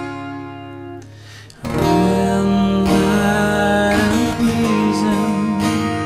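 Strummed acoustic guitar with a man's singing voice; about two seconds in, the music swells and he holds one long sung note with vibrato.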